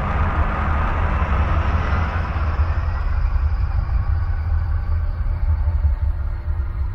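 A steady deep rumble, with faint whining tones above it that slowly fall in pitch and fade away.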